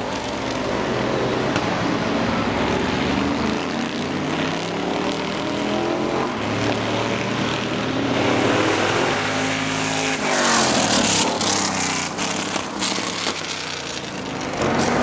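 GT race cars, a Corvette C6R's V8 among them, running hard through a corner, with more than one engine heard at once. The engine pitch climbs and drops repeatedly, and the sound is loudest from about ten to thirteen seconds in.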